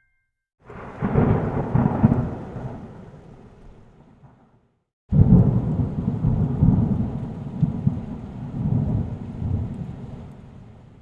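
Two thunder claps, each starting suddenly and rolling away as a fading rumble over four or five seconds; the second breaks about five seconds in.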